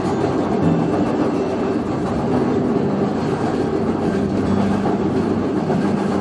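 Train running over a steel truss railway bridge, heard from on board: a steady rumble of wheels on the rails with some clickety-clack.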